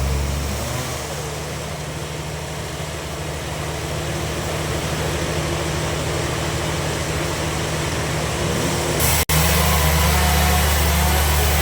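Bandsaw sawmill machinery running with a steady, low engine-like hum. There is a sudden break about nine seconds in, after which it runs louder.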